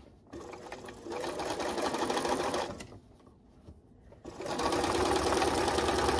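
Electric sewing machine stitching binding down through the layers of a quilt, in two runs: it speeds up over the first second and sews for about two and a half seconds, stops for over a second, then starts again and sews louder to the end.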